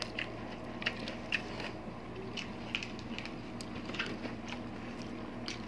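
Close-miked mukbang eating sounds: chewing and wet lip smacks from biting into braised pork hock (pata tim), in many small irregular clicks over a faint steady hum.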